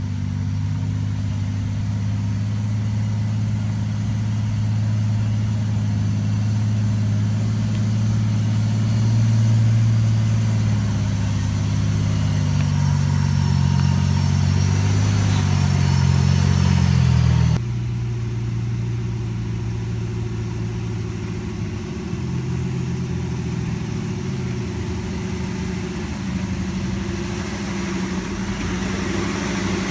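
Off-road Jeep engines running at crawling speed, a steady low drone with slow, small shifts in pitch. About two-thirds of the way in, the sound cuts abruptly to a different, somewhat quieter engine.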